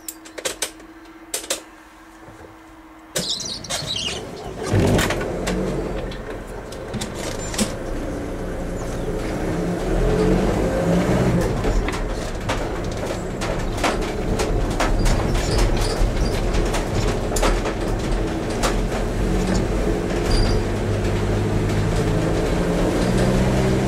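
A car starts up about three seconds in and drives off, heard from inside the cabin. Its engine note and tyre noise on the wet road build and then hold. Before that there are a steady tone and a couple of clicks.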